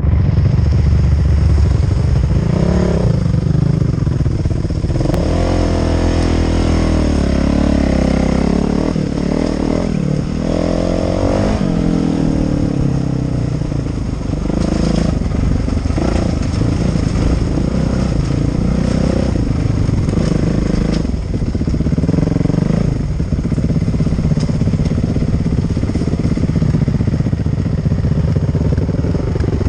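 Dirt bike engine heard from the rider's helmet, revving up and falling back over and over as it is ridden hard and shifted along a dirt trail.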